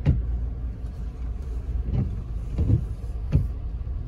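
Lifted Toyota Tundra on mud-terrain tires driving through slush, heard from inside the cab: a steady low rumble of road and engine noise, with several short thumps at uneven intervals.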